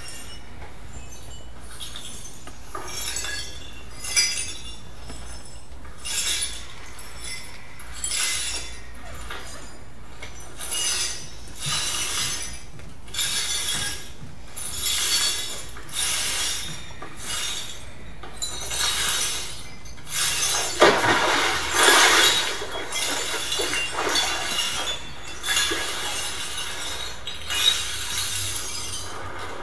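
Glassy clinking and rattling in short, repeated bursts, about one a second, growing denser and louder about two-thirds of the way through.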